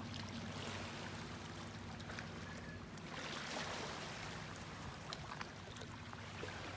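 Small waves lapping and trickling against a stony lakeshore, with faint ticks of water among the stones. A steady low hum runs underneath.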